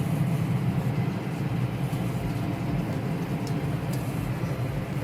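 Motor vehicle running steadily, a low engine rumble with a rough rattling texture, as when driving over a field.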